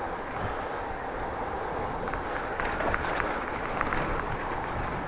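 Steady rumble of wind and road noise on an action camera's microphone while riding a bicycle, with a few sharp clicks about two to four seconds in.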